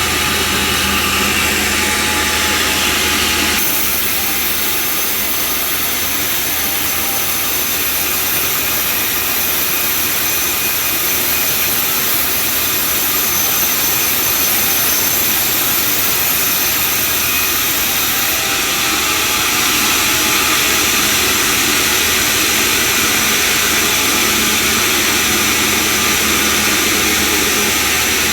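Sawmill bandsaw running continuously with a steady high hiss over a low hum. The sound changes about four seconds in, when the hum drops and the hiss grows, and shifts again after about eighteen seconds.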